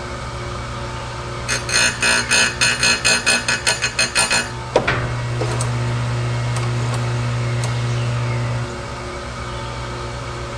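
Oregon 410-120 electric chain grinder running with a steady motor hum. About a second and a half in comes a rapid run of gritty rasps, about six a second for some three seconds, as the wheel grinds the saw chain's cutters, followed by a single sharp clack.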